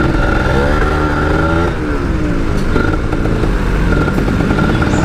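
Motorcycle engine revving up and easing off repeatedly as the bike creeps through stop-and-go traffic, with a steady high whine underneath.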